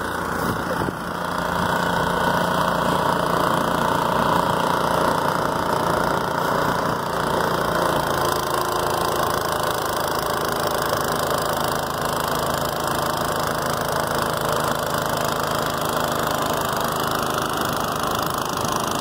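Troy-Bilt snowblower's small gasoline engine running steadily while the machine is pushed through deep snow.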